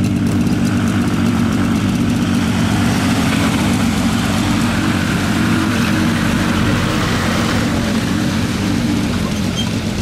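Vehicle engine idling steadily, a low even hum that eases off slightly near the end.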